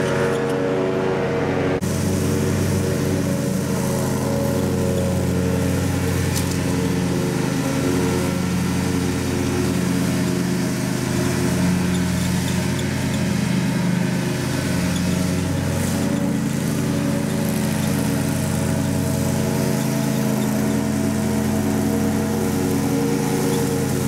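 John Deere S120 riding lawn mower's V-twin engine running steadily under mowing load, its blades cutting grass.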